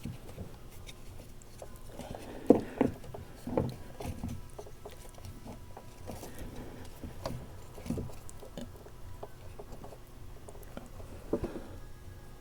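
Handling noise from threading a replacement rudder steering line through a kayak's plastic fittings: scattered light taps, clicks and rustles, the sharpest about two and a half seconds in.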